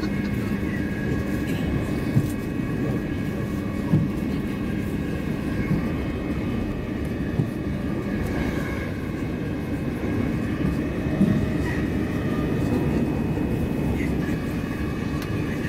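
Interior running noise of a Class 357 Electrostar electric multiple unit at speed: a steady rumble with the whine of the traction motors, broken by a few sharp knocks.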